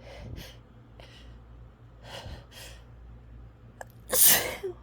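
A woman's allergy sneeze build-up: several short, catching breaths, then one strong sneeze about four seconds in.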